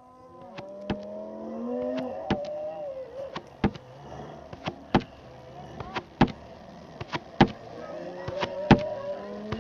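Dubbed-in dinosaur sound effects: sharp, heavy footstep thuds at an even pace, about one every second and a quarter. Under them is a long, pitched creature groan that rises and falls in the first few seconds and comes back near the end.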